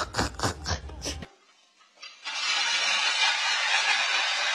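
A woman laughing in short bursts for about a second. Then, after a brief pause, a steady rush of water from a kitchen tap running into the sink.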